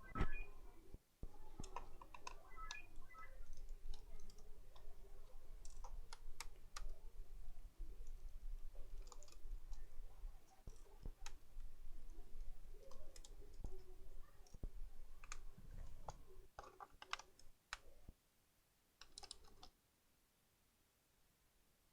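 Irregular clicks and small knocks of a laptop's plastic case and screws being handled as it is taken apart; it goes quieter near the end.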